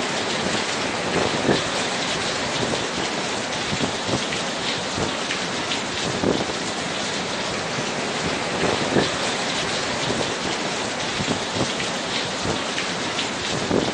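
Heavy rain falling steadily, with many close drops striking hard surfaces.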